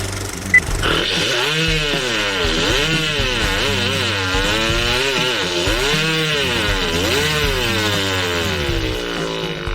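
A person vocally imitating a revving motor: a buzzy, raspy tone that swings up and down in pitch about every second, starting about a second in and stopping just before the end, over a steady low beat.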